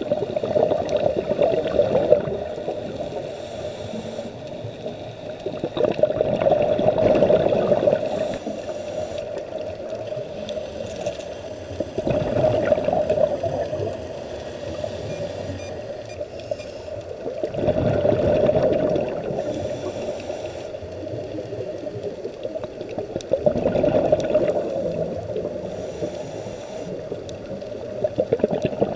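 Scuba diver breathing through a regulator underwater: a surge of exhaled bubbles about every five to six seconds, each lasting a second or two, over a steady underwater hiss.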